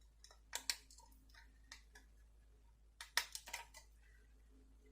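Faint scattered clicks and light taps of a small screwdriver and tiny screws being worked out of a diecast model car's base, with a pair of clicks about half a second in and a quick cluster about three seconds in.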